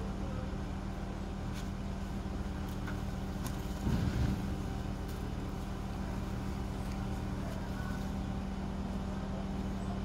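Crane engine running steadily at an even pitch while the crane holds a cut tree-trunk section on its cable. A brief, louder low bump comes about four seconds in.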